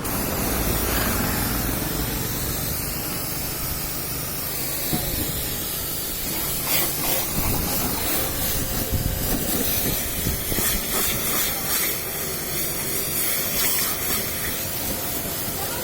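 Water spraying in a steady hiss that starts suddenly.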